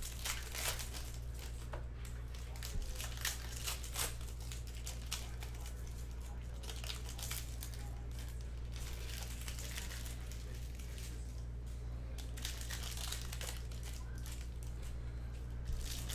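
Shiny foil trading-card pack wrappers crinkling and tearing as packs are ripped open by hand, in irregular crackles that come thicker near the start and end, over a steady low hum.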